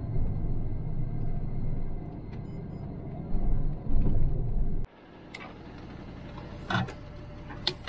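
Lorry engine and road rumble heard inside the cab while driving. About five seconds in it cuts off abruptly to a quieter low hum with a few sharp clicks.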